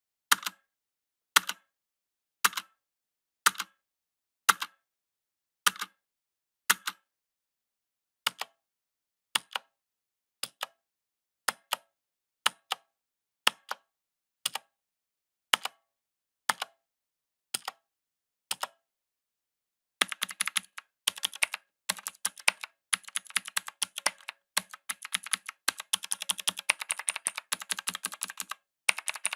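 Mechanical keyboard keys pressed one at a time, a sharp click about once a second. After a short pause, about two-thirds of the way in, it switches to fast continuous typing.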